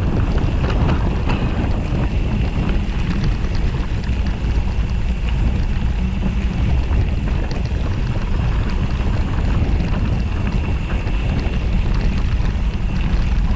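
Wind buffeting a bike-mounted camera's microphone, with a steady deep rumble from tyres rolling over a gravel track. A faint steady high whine runs underneath.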